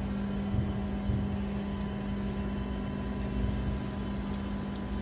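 Steady machine hum, a single droning tone over a low, uneven rumble; its pitch steps up just before it settles.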